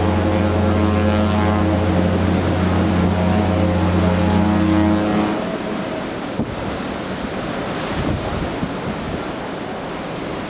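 A ship's horn sounds one long, low, steady blast and cuts off about five seconds in. Wind buffets the microphone and the sea rushes throughout; after the blast only wind and waves remain.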